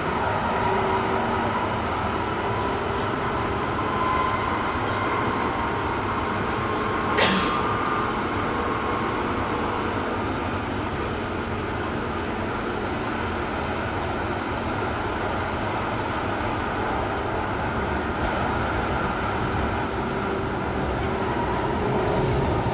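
Inside a DUEWAG B80D light-rail car running between stops: steady rumble of the wheels and running gear with a faint whine, and a single sharp click about seven seconds in.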